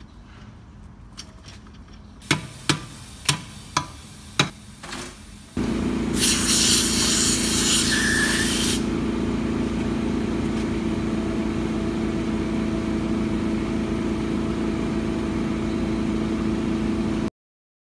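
A handful of sharp metallic knocks, then a steady machine hum starts abruptly about five seconds in, with a strong hiss of rushing air for about three seconds early in the hum; the sound cuts off suddenly near the end.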